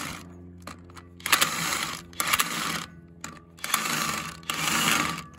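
Cordless DeWalt power driver spinning a homemade notched tube cutter over the chipper-drum knife bolt heads, grinding out packed wood debris. It runs in four short bursts, each under a second.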